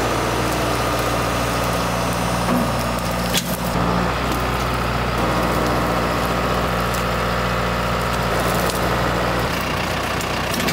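John Deere utility tractor's diesel engine running steadily under load as its front loader pushes a fallen tree limb, with a single knock about a third of the way in.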